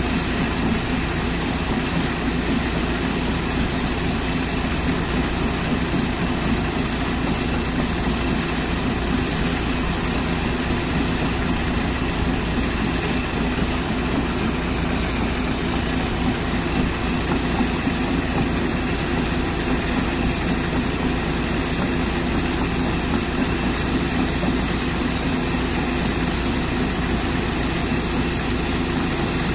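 A pressure washer's water jet hissing against an excavator's steel crawler track and undercarriage, over a steady engine running at idle.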